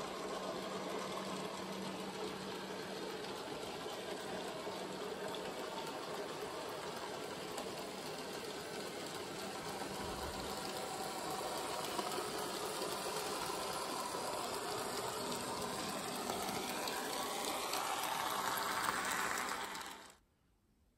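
Bachmann N scale Percy model locomotive running along the track, its small electric motor and wheels whirring steadily and growing louder as it nears. It cuts off suddenly about a second before the end.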